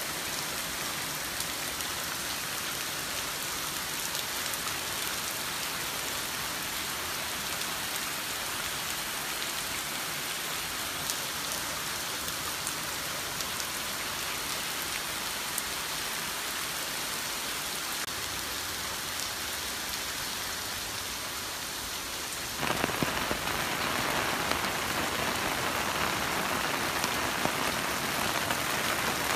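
Heavy typhoon rain pouring down as a steady hiss of rain on surfaces. A little over three-quarters of the way through it abruptly becomes louder and fuller.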